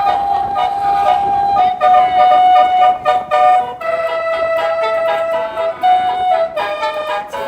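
Basuri 'telolet' bus horn playing a tune in long held notes. It holds one higher note for about four seconds, then steps down to a lower note, with a brief break near the end.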